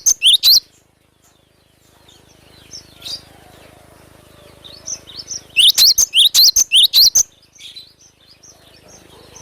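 Cinereous tit (glatik batu) singing energetically: fast runs of loud, sharp, repeated whistled notes, a short run right at the start and a longer one about five and a half seconds in, with softer chirps between and after.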